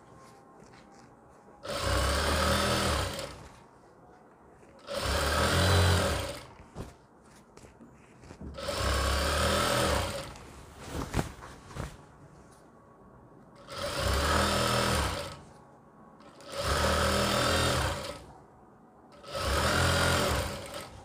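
JACK industrial sewing machine stitching golden lace onto a gown's hem. It runs in six short bursts of about a second and a half each and stops between them.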